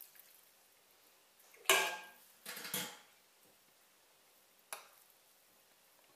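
A metal ladle clinking against a stainless-steel pot and plate as broth is ladled over couscous. One loud ringing clink comes about a second and a half in, two more just under a second later, and a lighter click near five seconds.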